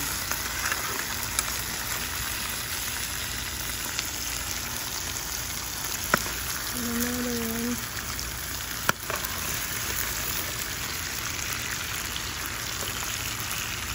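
Whole seasoned hassa (armored catfish) sizzling steadily as they fry in oil in an aluminium pot. A metal spoon clicks against the pot a few times as the fish are turned.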